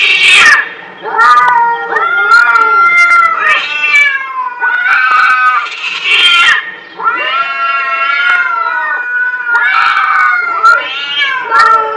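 Domestic cats caterwauling in a standoff: a series of long, wavering yowls, each a second or two long, one after another with short breaks between them. It is the threat call of cats squaring up to fight.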